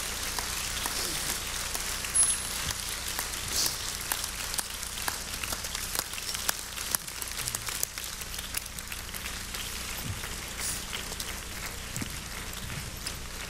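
Audience applause, many hands clapping, slowly dying down.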